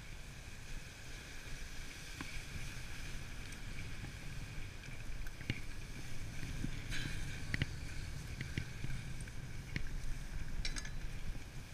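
Wooden dog sled gliding over a snow trail: a steady runner hiss over a low rumble, with scattered sharp clicks from the moving sled.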